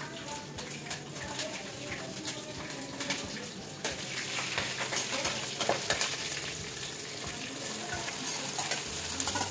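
Hot oil sizzling in a steel kadhai while a metal spatula stirs and scrapes, giving a steady hiss broken by frequent clinks and scrapes of metal on steel. Near the end, cut okra is scraped into the pan from a steel bowl with a slotted spoon.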